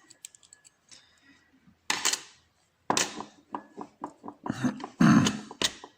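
Small metal tools and a padlock being handled on a bench: scattered clicks, clatter and short rustles, with a heavier knock about five seconds in.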